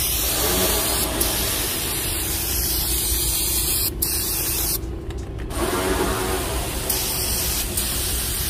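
Aerosol brake cleaner spraying onto a bare rear axle hub in long hissing bursts, with a brief break about four seconds in and another about a second later.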